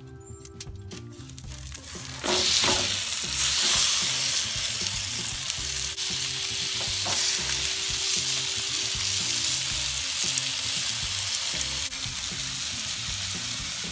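Sauce-coated pork spare ribs sizzling on a hot gas grill's cooking mat. The sizzle starts suddenly about two seconds in, as the first rack is laid down, and then carries on steadily.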